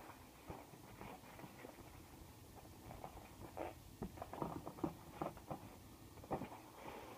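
Light cardboard handling noises from a white cardboard lens box: irregular faint taps, scrapes and knocks as it is lifted, tilted and set back down, busiest about four to five seconds in, with one sharper knock a little after six seconds.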